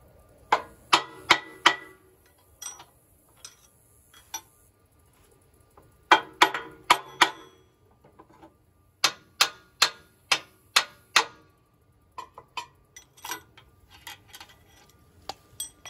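Hammer striking steel at the lower mount of a John Deere 158 loader's bucket cylinder: quick, ringing blows in bursts of four to six, with lighter taps near the end.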